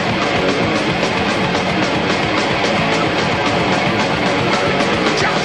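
Background rock music with distorted electric guitar and a steady, fast beat.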